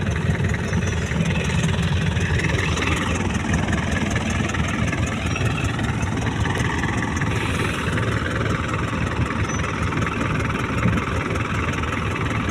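Fishing boat's engine running steadily with a low, even rumble.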